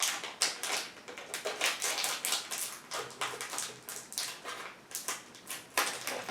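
Plastic toy packaging crinkling and rustling as it is handled and torn open by hand, in quick irregular crackles.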